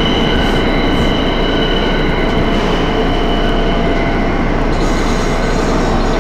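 R160 subway train entering an underground station and running past the platform: a loud, steady rumble of the cars, with several steady high-pitched tones held over it.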